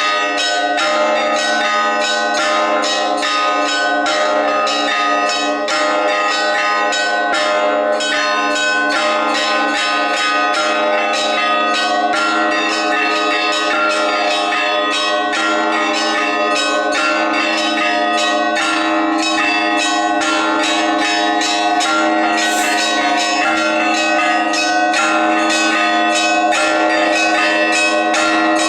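Orthodox church bells ringing a full peal: many bells struck together in a quick, continuous rhythm, with small bells striking rapidly over the sustained ringing of the larger ones.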